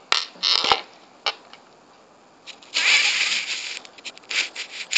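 Handling noise on the recording phone's microphone: a few sharp knocks and clicks, then a longer rubbing scrape about three seconds in and a run of small clicks near the end, as the phone is picked up and moved.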